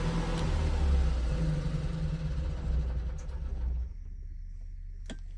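Onan Emerald III RV generator running with a steady low hum, now starting after new batteries were fitted. The running sound drops away abruptly about four seconds in, followed by a couple of sharp clicks.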